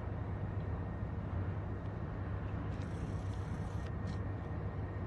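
Diesel engine of a New York, Susquehanna & Western SD-series locomotive running steadily at low throttle as the unit moves slowly. A brief high squeal lasts about a second near the middle.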